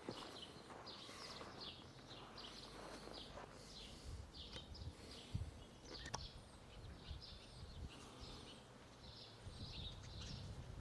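Faint birdsong: small birds chirping over and over, with low rumbles and a single sharp click about six seconds in.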